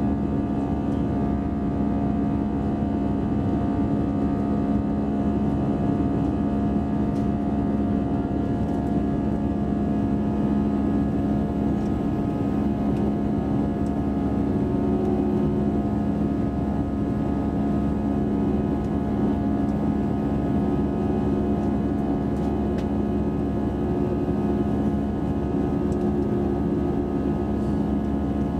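Airbus A320's turbofan engines at climb thrust, heard from inside the cabin over the wing: a steady drone of engine hum and rushing air, with low steady tones and no change in level.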